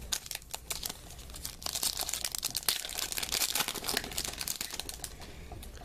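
Shiny plastic wrapper of a trading-card pack crinkling and tearing as it is pulled open by hand, a dense crackle that is loudest from about a second and a half in until about four seconds in.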